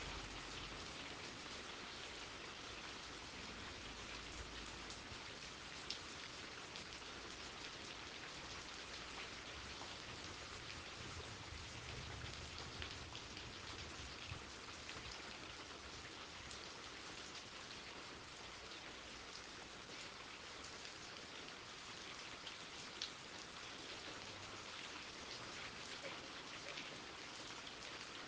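Steady rain falling, an even hiss with scattered individual drops pattering close by and a couple of sharper drips about six seconds in and near twenty-three seconds.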